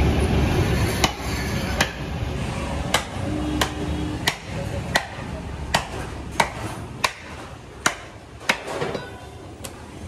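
Butcher's cleaver chopping a cow leg on a wooden chopping block: about a dozen sharp whacks, roughly one every two-thirds of a second, over a low background rumble.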